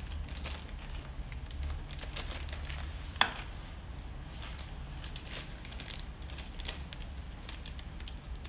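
Plastic wrapping on a sewing-machine accessory crinkling and crackling as it is unwrapped by hand, with one sharp louder snap about three seconds in.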